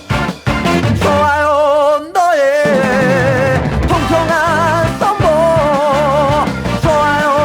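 Recorded pop-rock song playing: a full band with bass and drums under a held, wavering lead melody, with no sung words.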